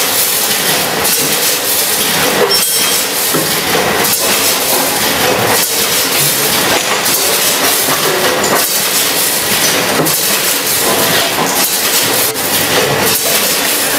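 Vertical form-fill-seal oat packaging machine running: a steady hiss and clatter, with a sharp knock about every second and a half, the rhythm of its bag-forming and sealing cycle.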